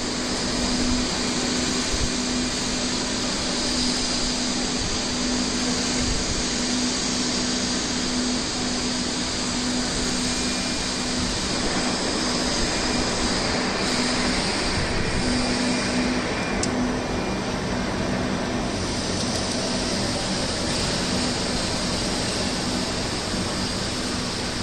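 Laser cladding equipment running, giving a steady rushing noise with a low steady hum underneath.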